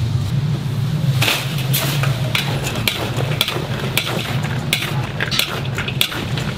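Spatula scraping and knocking against a large metal wok in repeated short, sharp strokes as fried chicken pieces are tossed in sticky sauce, starting about a second in, over a steady low hum.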